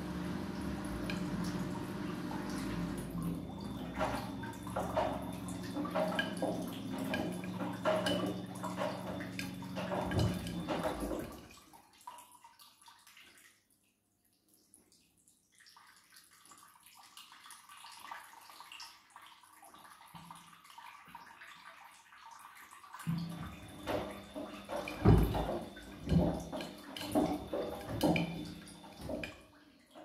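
Siemens front-loading washing machine in its wash cycle: the drum motor hums as the drum tumbles wet laundry with sloshing and splashing. About eleven seconds in the drum stops, and some ten seconds later it starts turning again with sloshing and thuds.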